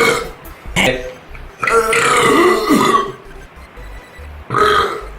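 A man burping: a long, loud burp of over a second in the middle with a wavering pitch, and shorter bursts near the start and near the end.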